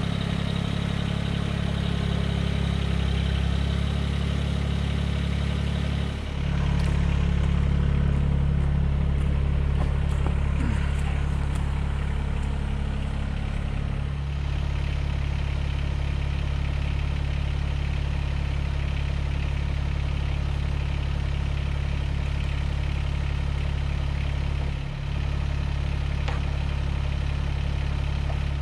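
An engine running steadily at a constant speed. Its pitch shifts slightly about 6 and 14 seconds in, with a brief dip near the end.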